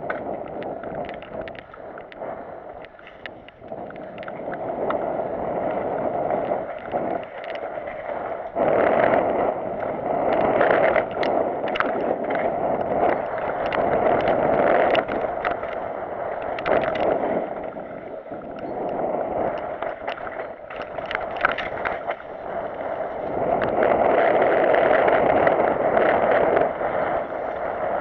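Mountain bike descending a dirt trail: a rushing noise of tyres and air that swells and fades with speed, loudest about a third of the way in and again near the end, with frequent clatter and knocks from the bike over bumps.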